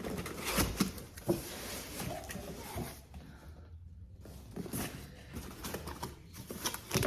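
A cardboard box and its packaging being handled: scattered rustles, scrapes and light taps, with a short pause about four seconds in.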